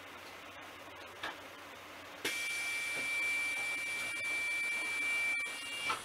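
London bus's pneumatic air system venting: a hiss with a steady high whistle starts sharply about two seconds in and cuts off about three and a half seconds later.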